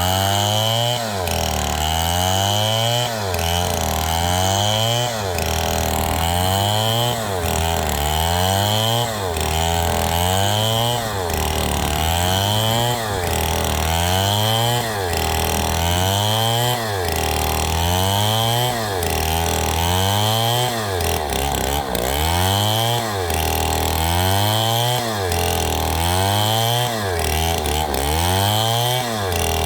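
Two-stroke chainsaw engine revving up and dropping back again and again, in an even cycle about every two seconds.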